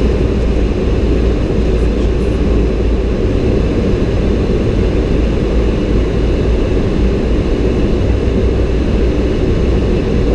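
Steady flight-deck noise of a Boeing 737-800 descending on approach: an even, low rush of airflow and engine sound heard from inside the cockpit.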